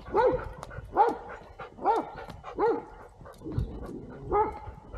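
Dog barking repeatedly, about one bark a little under every second, each bark rising and falling in pitch; the last couple of barks are weaker.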